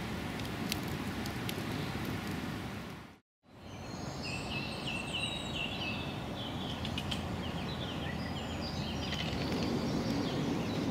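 Wood campfire crackling with a few sharp pops. After a brief dropout to silence, several small birds chirp and sing repeatedly over a steady background hiss.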